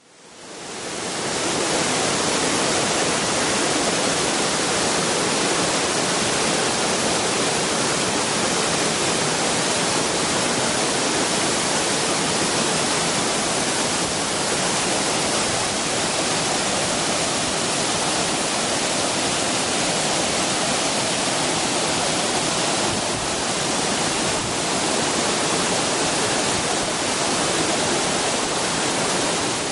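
Yoro Falls waterfall: a steady, unbroken rush of falling water, fading in over the first second or two.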